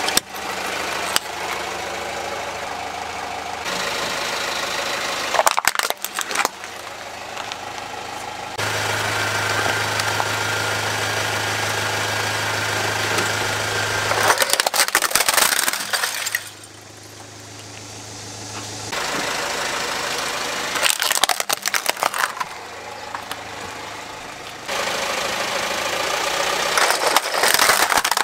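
A car's engine running at a slow crawl as its tyre rolls over plastic toys, which crack and snap under the wheel in several bursts of sharp breaking.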